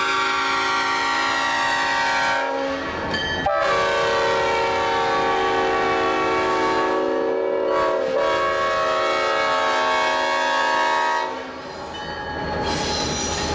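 Leslie five-chime locomotive air horn blowing a chord, cutting off about two and a half seconds in, then sounding again a second later in one long blast of about eight seconds. Near the end the horn stops and the rumble and clatter of the moving train take over.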